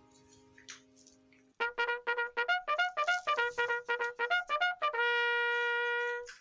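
Background music: a trumpet plays quick short notes, about four a second, hopping between two pitches, then holds one long note that cuts off near the end.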